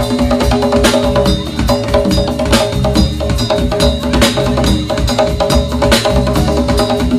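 Live band playing Latin rock: drums and a sharp wood-block-like percussion knocking out a steady rhythm over sustained chords.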